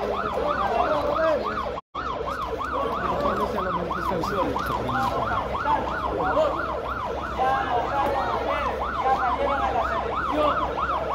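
Emergency vehicle siren in a fast yelp, its pitch sweeping up and down about three to four times a second without letup. The sound cuts out for a split second just before the two-second mark.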